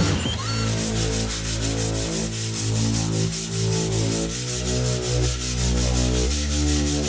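Wood being sanded: a steady rasping hiss. Background music with sustained chords plays under it.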